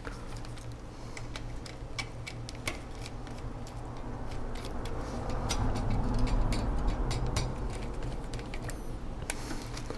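Small screwdriver clicking and scraping on the screw terminals of a Mean Well power supply as a wire lead is fastened: scattered sharp light ticks over a low steady hum.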